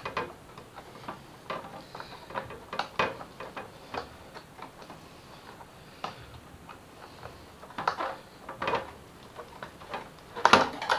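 Irregular clicks and knocks of plastic motorcycle fairing being handled and pulled free, with a few louder knocks near the end.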